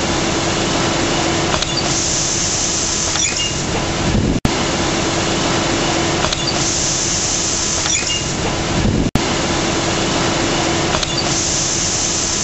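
Grain drier shutter discharge machinery running with a steady hum. A high hiss comes and goes about every four and a half seconds, and the sound cuts out briefly twice.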